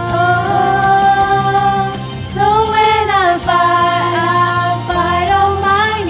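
Live church worship music from a praise band: long held melody notes over a steady low backing, with a swooping bend in pitch about halfway through.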